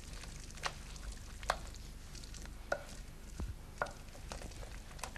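A spoon clicking and scraping against a glass bowl as fresh cream is stirred into melted chocolate: soft, irregular clicks about once a second over a faint steady hum.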